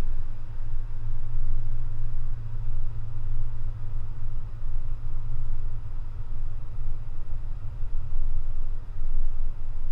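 Steady low rumble of a car being driven along a paved road: engine and tyre noise.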